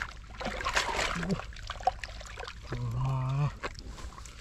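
Hands squelching and splashing in thick muddy water at the bottom of a dug hole, feeling for fish in the mud. A short held vocal sound comes about three seconds in.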